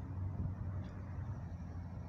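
Outdoor ambience: a steady low rumble with no distinct event.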